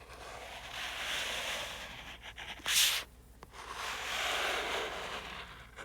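A pen drawn across paper in two long, even strokes, sketching the two arms of a parabola, with a short sharp scratch between them a little under three seconds in.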